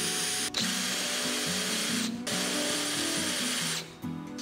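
Electric drill with a countersink bit running and cutting into a metal strip, with a high steady whine over a hiss. It pauses briefly about two seconds in, runs again and stops near the end. Background music plays underneath.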